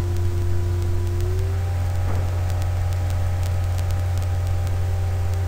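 Steady electrical hum with hiss in the recording. Faint steady tones above it shift slightly higher about a second and a half in.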